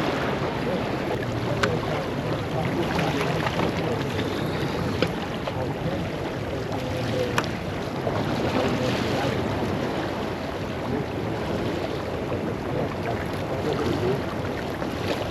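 Steady wind buffeting the microphone over the wash of water around the pier, with a few faint clicks.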